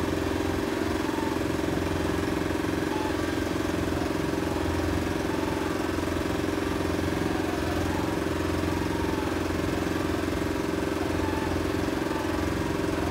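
A small boat's outboard motor running at a steady, unchanging speed.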